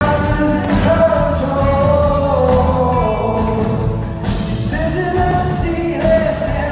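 Live concert music: a singer holding long notes that glide slowly, over band accompaniment.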